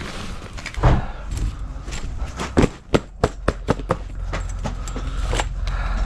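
Aluminium poles of a folding tent frame knocking and clicking as the frame is handled and collapsed. There is a thump about a second in, then a quick run of sharp clacks in the middle, over a low steady rumble.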